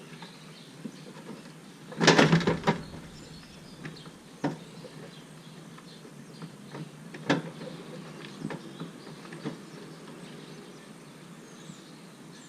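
Plastic front bumper cover of a Jeep Patriot being pulled off the car: a burst of sharp clicks and knocks about two seconds in as it comes loose, then a few single knocks.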